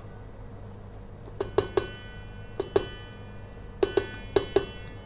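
About nine sharp knocks on a stand mixer's stainless steel bowl, in quick groups of two and three, each ringing briefly: a spatula and a glass bowl being tapped on the bowl to knock margarine into it.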